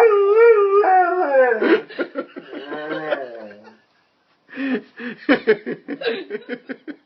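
Dog howling, set off by a doorbell: one long wavering howl that slides down in pitch and stops about two seconds in. A person laughs after it.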